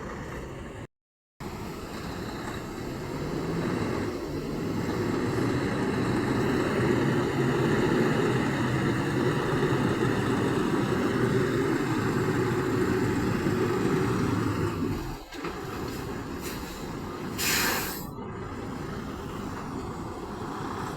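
Semi truck's diesel engine rumbling as it works, building for several seconds and then dropping away sharply about fifteen seconds in. A short air-brake hiss follows near the end.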